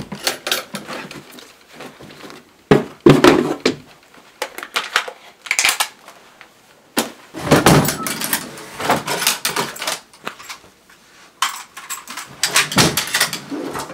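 Irregular clattering, knocking and rustling of gear being handled: clothes rummaged in a wooden dresser drawer and a rifle picked up and handled, with several sharp knocks along the way.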